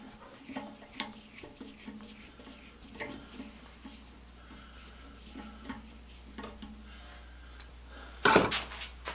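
Light clinks and taps as small metal parts and hand tools are handled on a workbench, with a brief louder burst of handling noise about eight seconds in.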